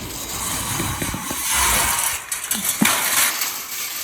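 Metal clinking and rattling as the heat pump's removed sheet-metal coil guard is handled, with a sharp knock near the end.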